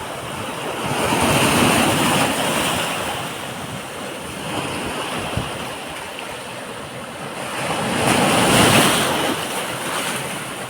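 Black Sea surf washing onto a beach: a steady rush of breaking waves that swells twice, once about a second in and again about eight seconds in.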